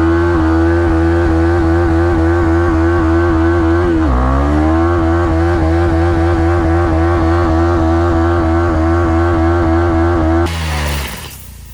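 KTM Duke 390's single-cylinder engine held at high revs during a stationary burnout, spinning the rear tyre. The revs dip briefly about four seconds in and climb straight back, then fall away as the throttle is closed near the end.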